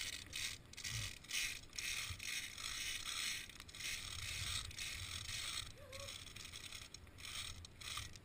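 Via ferrata lanyard carabiners sliding along the bridge's steel safety cable: a continuous metallic scraping rasp, broken by short pauses.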